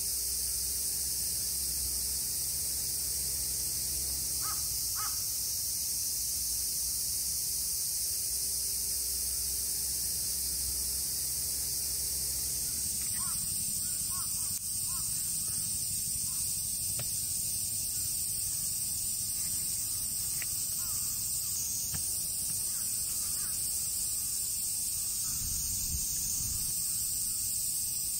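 Outdoor summer ambience: a steady high-pitched chorus of insects, with crows cawing a few times.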